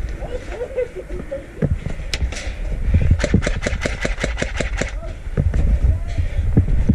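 Airsoft gun firing: a couple of single shots, then a rapid string of about ten shots over a second and a half.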